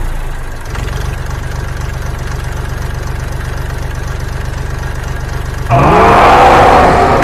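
Dubbed-in tractor engine sound effect idling with a fast, even chug. About six seconds in, a louder cartoon snoring effect with gliding tones comes in over it.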